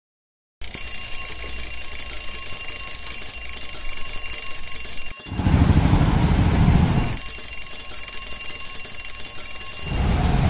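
A steady electronic ringing tone with several high pitches held at once starts suddenly out of silence about half a second in. Two loud low rushes sweep over it, one about five seconds in lasting some two seconds, the other near the end.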